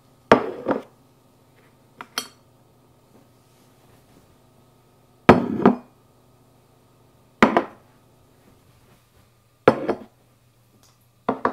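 Ceramic dishes set down one by one on a tabletop: a plate, a mug and rice bowls, each landing with a short clunk and clink, six times a few seconds apart.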